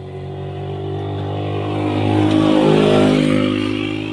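A motor vehicle's engine passing close by, swelling to a peak about three seconds in and then fading, its pitch dropping slightly as it goes away.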